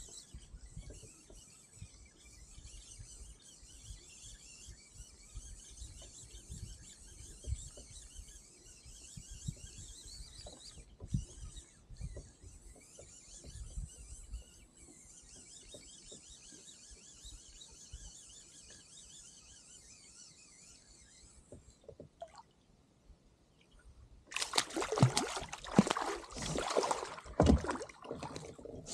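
Water trickling faintly with light knocks, then loud splashing for the last four seconds or so as the hooked fish reaches the surface beside the kayak.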